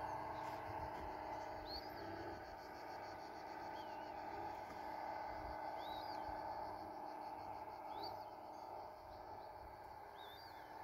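A bird calling with short, arching whistled chirps about every two seconds, over a steady, fast-pulsing insect chirr and a low outdoor hum.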